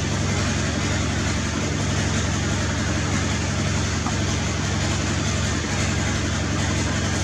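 A machine running: a steady low hum under an even hiss, unchanging throughout.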